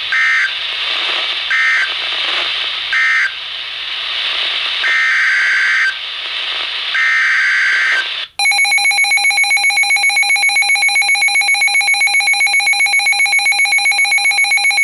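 NOAA Weather Radio SAME digital data bursts over radio hiss: three short, shrill two-pitch chirps about a second and a half apart, the end-of-message code closing a flood warning, then two longer bursts, the header of the next alert. About 8 seconds in, a loud electronic alert alarm begins, pulsing rapidly.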